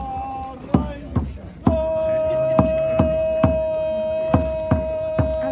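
A drum beaten in a steady beat, a little over two strokes a second. About a second and a half in, a horn joins with one long, unwavering note.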